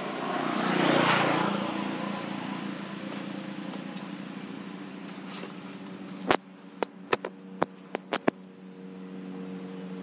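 Outdoor background of a steady low engine-like hum and a thin, high insect buzz, with a louder swell of noise about a second in, like a passing vehicle. About six seconds in, a run of around eight sharp clicks follows over two seconds.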